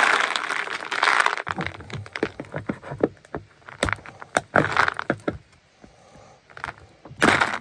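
Loose marbles clicking and rattling inside a hollow rooster figurine as it is turned upside down and handled: many quick, irregular clicks with short rustling bursts, loudest at the start and just before the end.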